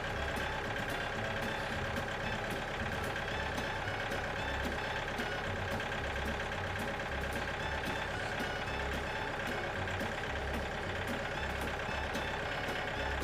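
Frontier OS27 portable bandsaw mill running steadily while its blade saws a slab off a maple log.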